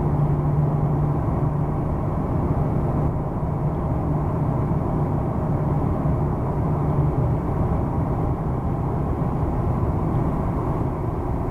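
Cabin noise of a 2006 Ford F-150 with a 5.4-litre V8 driving on a paved road: steady engine and road noise with a low drone that eases a little about seven seconds in.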